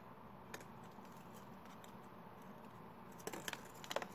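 Hands handling and squeezing a soft foam corn-cob squishy toy: faint rubbing with a few small crackles and clicks in the last second, over a low room hum.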